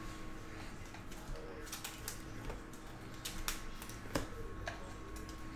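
Panini Prizm basketball cards being handled and set down by hand: irregular light clicks and taps, the sharpest about four seconds in, over a faint steady hum.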